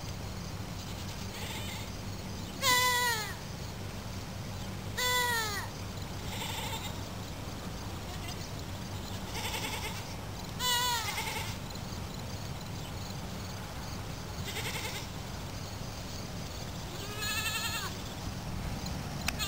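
Goats bleating: four loud calls, each sliding down in pitch, with fainter bleats between them, over a steady low hum.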